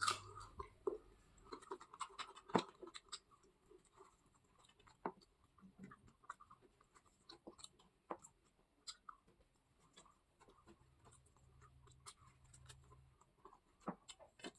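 Faint eating sounds: irregular small clicks and scrapes of food being handled and chewed, with quiet gaps between them.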